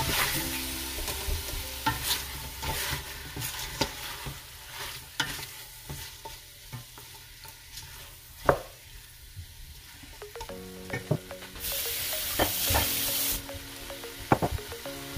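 A wooden spoon stirring salted chicken pieces, lemongrass and onion in a stainless steel pot, scraping and knocking against the pot, with the meat sizzling as it sautés. One sharp knock comes about eight seconds in, and the sizzling hisses louder for a moment near the end.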